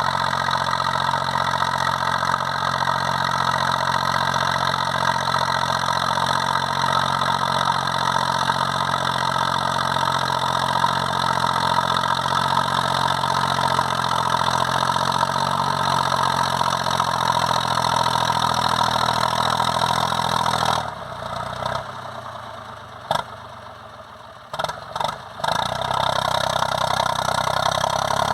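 Zetor 5011 tractor's three-cylinder diesel engine running steadily while ploughing. About three quarters of the way through, the engine sound drops away for about four seconds, broken by a few short knocks, then comes back.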